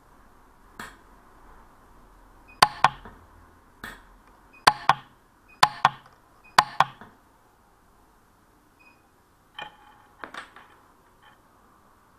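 A run of about a dozen sharp clicks, most in close pairs a fraction of a second apart, each with a brief metallic ring: the Lampert PUK 3 micro pulse welder firing weld pulses on a 9ct gold pendant ring.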